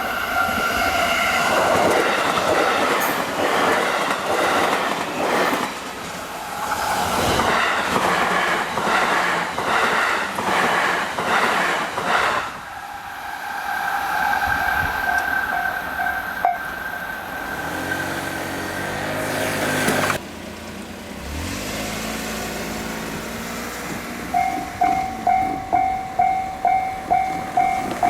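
A JR Hanwa Line train passes a level crossing at speed, its wheels clattering rapidly over the rail joints for about twelve seconds against the crossing's electronic warning bell. The clatter stops abruptly. The bell goes on ringing for a few more seconds, then falls silent. Near the end the bell starts ringing again, about two strokes a second, warning of the next train.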